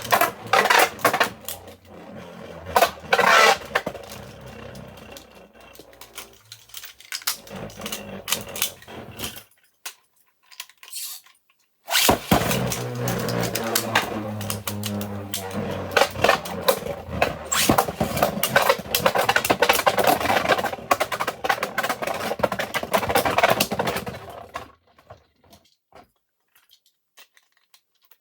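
3D-printed Beyblade spinning tops whirring and clattering against each other in a stadium, with rapid clicks of repeated collisions over a steady hum. The sound stops for about two seconds near the middle, then a second round runs until it dies away near the end.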